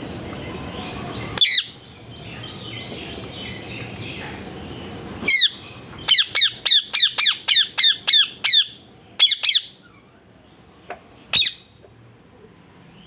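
Ringneck (rose-ringed) parakeet screeching: a single loud call, then after a pause a fast run of about ten shrill calls at roughly four a second, each a short falling screech, followed by a few more spaced calls.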